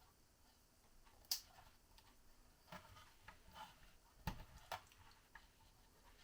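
Scattered small clicks and taps of hands working on mains wiring and its small plastic parts, with a sharp click about a second in and the loudest knock about four seconds in.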